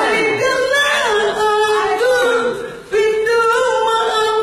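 Unaccompanied singing voice holding long, wavering notes, with a short break about three seconds in.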